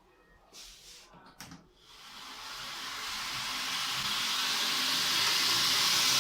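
Homemade belt grinder starting up, its motor and abrasive belt coming up to speed: a few light clicks, then from about two seconds in a rushing hiss that grows steadily louder to the end.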